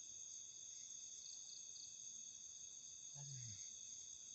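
Steady night chorus of crickets and other insects, several high trills layered together, with a few short pulsed chirps about a second in. A brief low murmur from a person comes a little after three seconds.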